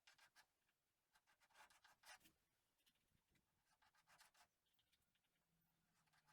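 Near silence with faint, irregular scratching strokes, like a tool or hand scraping over a surface.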